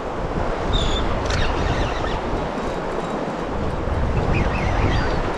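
Wind buffeting the microphone outdoors, a steady rumbling noise with water sounds beneath it, with a few faint, short high chirps about a second in and again near the end.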